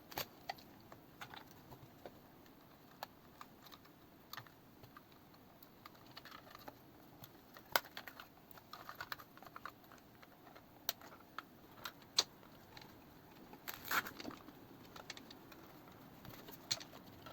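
Faint, irregular clicks and taps of hard drives and small hardware being handled and fitted into a PC case, with a few sharper knocks in the middle and late in the stretch.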